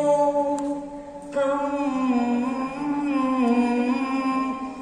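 Cantonese opera music: a slow melodic line of long held notes that bend gently in pitch.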